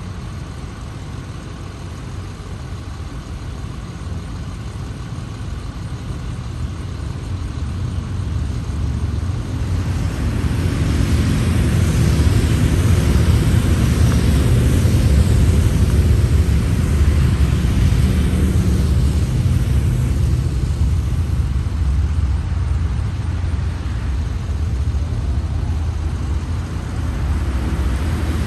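Police motorcycles and other vehicles of a slow motorcade passing, their engines running. The sound grows louder over the first ten seconds or so and is loudest around the middle.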